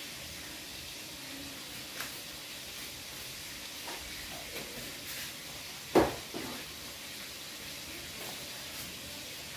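A large aluminium stockpot of pork leg and broth cooking over a burner with a steady hiss. There is a light click about two seconds in, a few faint knocks, and one sharper knock with a short ring about six seconds in.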